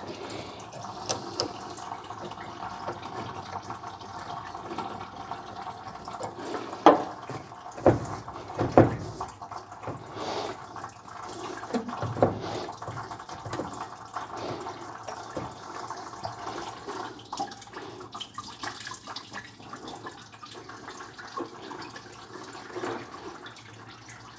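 Coolant running steadily out of the drain spigot of the truck's stock radiator into a 5-gallon bucket, as the radiator is drained for replacement. A few knocks and clunks come around the middle as the upper radiator hose is twisted off.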